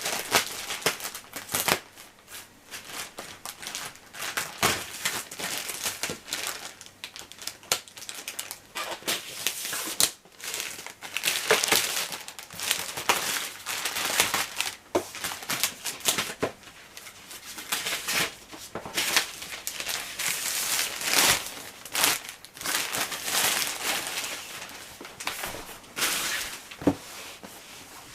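Postal parcel packaging being torn and crinkled by hand as it is opened, in irregular rustling, crackling bursts.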